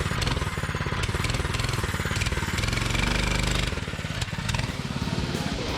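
Freshly started Tillotson 212cc single-cylinder four-stroke engine on a mini bike running during break-in, its speed shifting up and down, with a dip about four seconds in.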